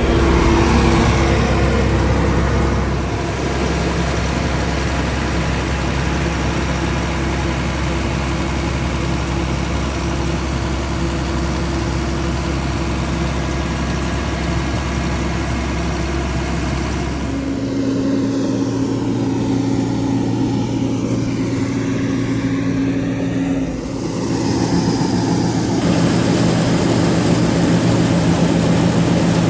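Combine harvester running steadily at work, with a continuous machine hum. The sound changes abruptly twice, about two-thirds of the way through and again near the end.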